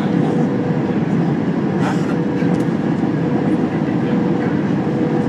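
Steady cabin roar of an Airbus A321 on final approach with the flaps extended: engine noise and rushing air, with one steady droning tone running through it.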